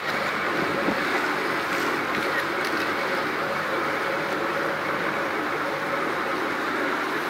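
A tour boat's engine running steadily under way: a constant drone with an even rush of noise over it.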